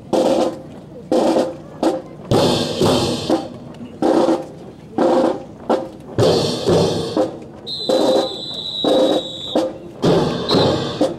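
Military marching band playing a march, with snare drums, bass drum and cymbals in a strong beat of loud accented hits about once a second. A high steady tone sounds for about two seconds about eight seconds in.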